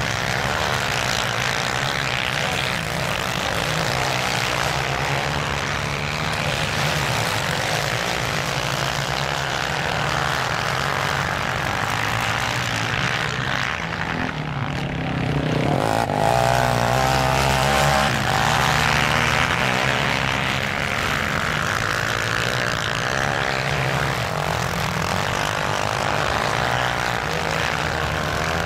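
Racing quad bikes' engines running and revving on a sand course, a steady engine drone with pitch wavering up and down. About sixteen seconds in, the engine sound grows louder for a couple of seconds, with the pitch rising and falling.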